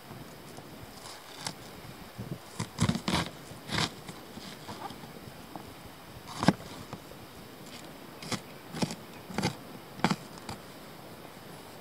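Kitchen knife chopping an onion on a thin plastic cutting mat over a hollow plastic box: irregular sharp knocks in short bunches with pauses between, the loudest about halfway through.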